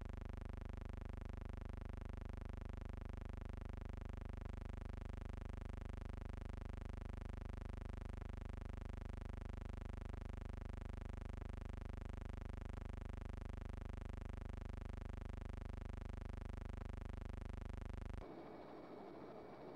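Steady electrical hum with many evenly spaced overtones, unchanging in pitch and level. It cuts off abruptly near the end, leaving a faint hiss.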